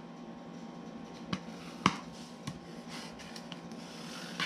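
A plastic scraper pressing and smoothing a glued paper pocket flat against a board on a cutting mat: light rubbing with a few sharp clicks, the loudest about two seconds in.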